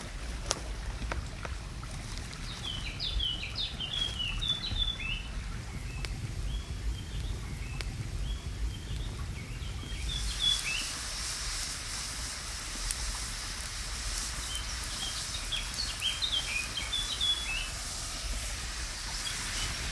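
Wood fire crackling with a songbird singing short chirping phrases, in two spells. About halfway through, a steady sizzling hiss from a pan cooking over the flames sets in.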